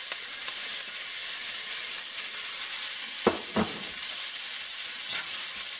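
Chopped celery, carrots, onions and parsley sizzling steadily in hot oil and rendered beef fat in a heavy-bottomed pot, just after going in. There are two brief sounds close together about halfway through.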